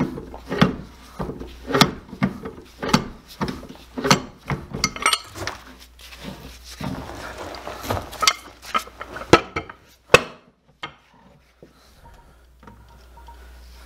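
Irregular metal clanks and knocks, about one or two a second, as a large pipe wrench is worked on a skid steer hydraulic cylinder clamped in a bench vise, unscrewing the cylinder head so the rod can come out. The clanking dies away about ten seconds in, leaving a couple of faint clicks.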